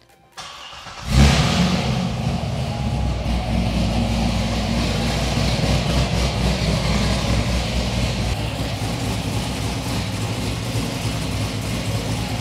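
2012 Corvette Grand Sport's 6.2 L LS3 V8 starting up on its first start after an oil change: a short crank, then it catches about a second in with a brief flare and settles into a steady idle.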